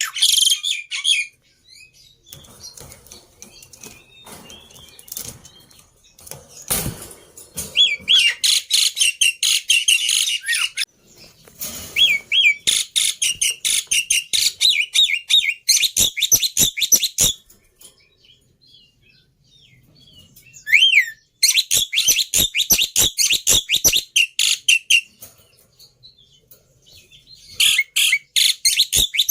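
Jalak (starlings) chattering in fast, harsh bouts of several seconds each, broken by short pauses, with one rising whistle about two-thirds of the way through.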